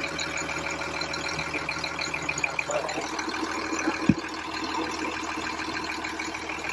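Cummins ISC diesel engine idling steadily, with the electric cooling fans running. A single brief thump about four seconds in.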